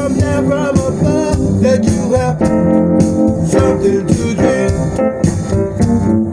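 Music: keyboard chords and guitar over a steady beat, without words sung.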